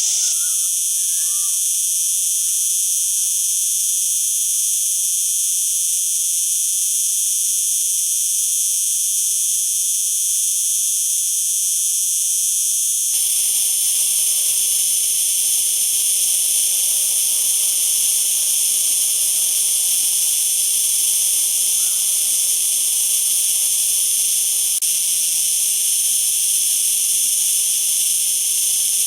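Cicada song: the continuous, steady, high-pitched buzz a male cicada makes to attract females. The buzz changes character abruptly about thirteen seconds in.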